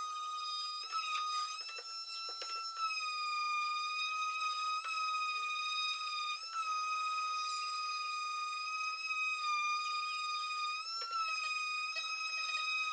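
Electric palm sander running on a wooden box with 120-grit paper, a steady high whine whose pitch sags briefly a few times. A few light knocks come in the first couple of seconds.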